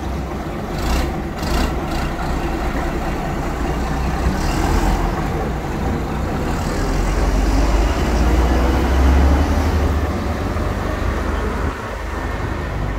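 Vintage half-cab double-decker bus in Glasgow Corporation livery driving slowly past at close range and pulling away, its engine running with a deep rumble that swells about eight seconds in and eases near the end.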